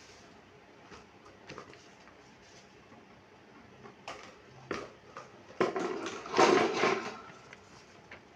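Parts of a standing fan being handled during unboxing and assembly: scattered light clicks and knocks, then a louder stretch of knocking and rustling scrapes about two-thirds of the way in.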